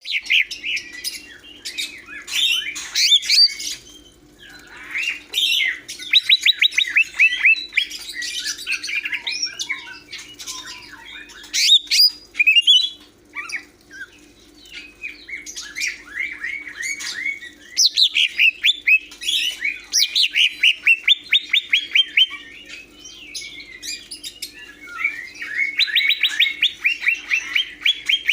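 Green leafbird (cucak hijau) singing: loud phrases of a few seconds made of rapid runs of repeated whistled notes, about ten a second, some sweeping up and down, with short pauses between phrases.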